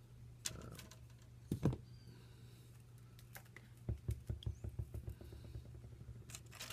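Scattered light clicks and taps from a thin walnut plank being handled and worked against a wooden pre-bending form, with a quick run of them about four seconds in. A steady low hum lies underneath.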